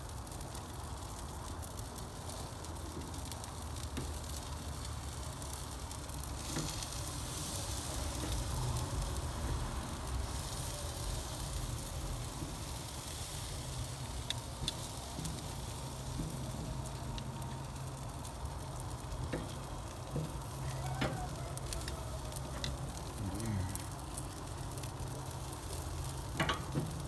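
Barbecue-sauce-glazed beef brisket and chicken wings sizzling on a wood-fired grill grate: a steady hiss, louder for several seconds from about six seconds in, with a few faint clicks.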